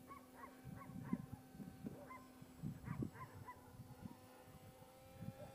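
Faint, steady whine of a distant RC model plane's electric motor, rising slightly in pitch near the end. Faint short chirps are scattered over it.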